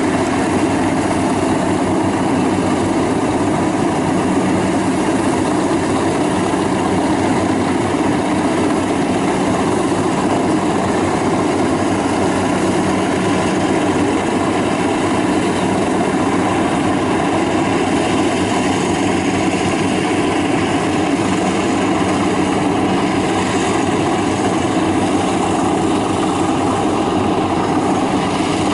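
FMWorld WD102 Pro rice combine harvester running steadily under load as it harvests rice: an even, unbroken engine and machinery sound.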